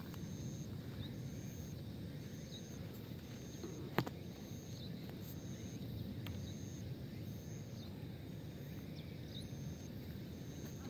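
Outdoor ambience: a steady low rumble with an insect chirping high and even, about once a second. A single sharp click about four seconds in.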